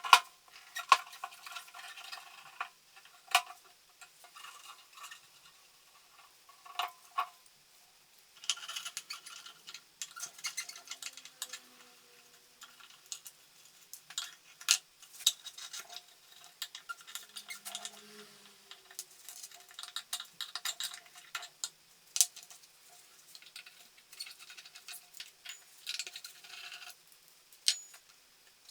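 Hand tools and the small metal parts of an old cash-register drawer clicking and clinking in irregular taps, with some scraping, as the drawer is taken apart.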